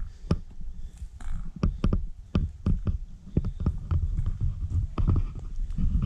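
A hiker's footsteps on a dirt forest path and knocks from handling a handheld or body-worn camera, over a low rumble of wind on the microphone. The knocks are irregular, about two or three a second.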